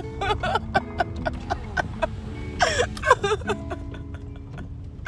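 Music with held notes and light clicking percussion over the low rumble of a car cabin. A short burst of voice comes about halfway through.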